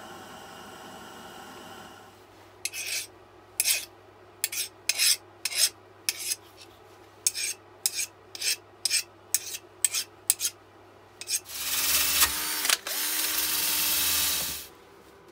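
A hardened high-speed-steel blade blank scraped by hand in about twenty short strokes, cleaning it so the temper colours will show; then a cordless drill spins an abrasive wheel against it in two bursts lasting about three seconds together. Before the scraping, a gas torch hisses and stops about two seconds in.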